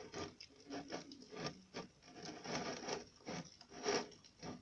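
Fingers scraping and rubbing glue-and-borax slime around a plate, in an irregular series of short scrapes.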